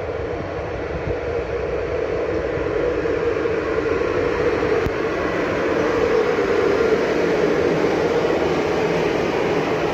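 A train running past on the line, a steady rumble that grows louder and peaks about two-thirds of the way in.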